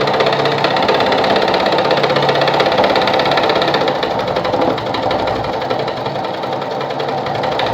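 Sartina e-100 sewing machine running fast and steadily, sewing one of its built-in decorative stitch patterns with a rapid, even mechanical clatter. It eases off slightly about five seconds in.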